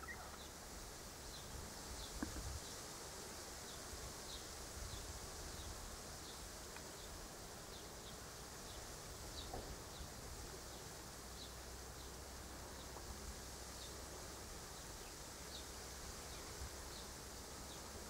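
Faint outdoor insect ambience: a steady high hiss with short high chirps repeating about once a second, over a low rumble.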